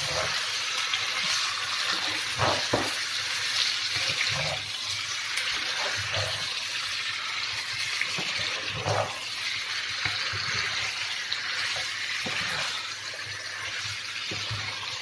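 Raw chicken pieces sizzling steadily in hot oil in a nonstick frying pan while a wooden spatula stirs them, knocking and scraping against the pan now and then.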